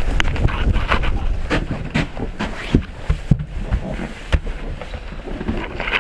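Blizzard wind buffeting the microphone as a heavy, gusting rumble, broken by irregular sharp knocks and snaps throughout.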